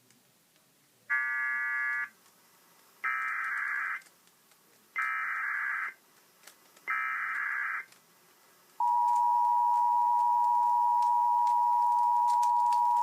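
Emergency Alert System activation: four roughly one-second bursts of SAME digital header data, about two seconds apart, then a steady single-pitched attention tone starting about nine seconds in. The alert is for a high wind warning.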